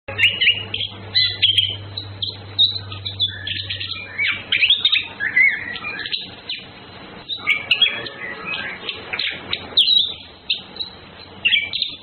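Orange-headed thrush (anis kembang) singing: a rapid, varied run of short whistles and chirps, in bursts separated by short pauses.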